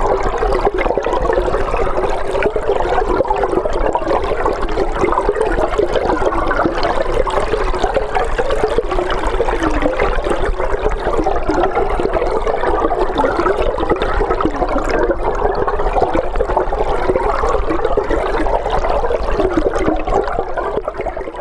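Underwater sound of the Skora river picked up by a hydrophone: a steady rush of flowing water with a low hum beneath, fading out near the end.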